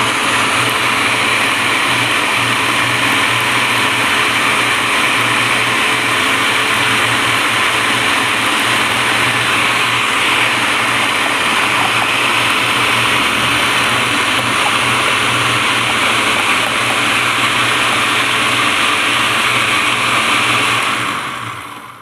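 Electric food processor motor running steadily while almeirão (chicory) leaves are pushed down its feed tube and chopped. The motor winds down and stops near the end, once the chopping is finished.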